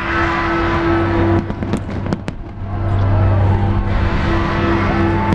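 Fireworks display: a quick run of sharp bangs about a second and a half in, over a continuous rumbling wash and a steady low hum.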